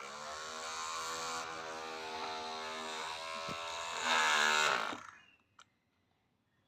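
Ferrari car engine sound effect being played back: a steady buzzy engine note that gets louder and rises in pitch about four seconds in, then cuts off suddenly about five seconds in.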